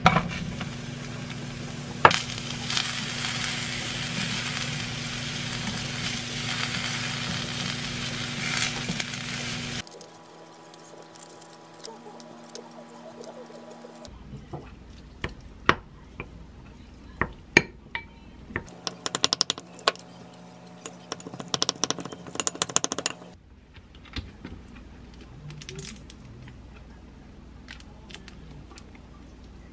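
Sliced king oyster mushrooms tipped into a hot pan and sizzling in rendered duck fat for about ten seconds, with a sharp knock about two seconds in. After that come scattered clicks of boiled eggshell being cracked and picked off, then a quick run of clinks as a spoon mashes the eggs in a glass bowl.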